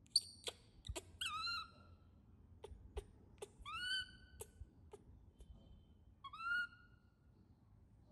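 A baby macaque gives several high, whistle-like calls, each rising and then holding briefly. Scattered sharp clicks fall between the calls.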